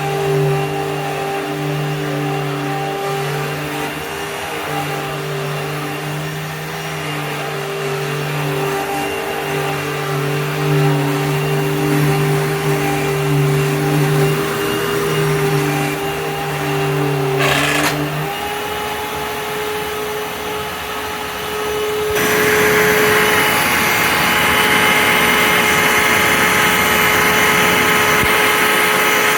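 Hoover Fold Away upright vacuum cleaner running with a steady motor hum. A click comes about two-thirds of the way in, the low hum drops away, and a few seconds later the running turns louder and more hissing.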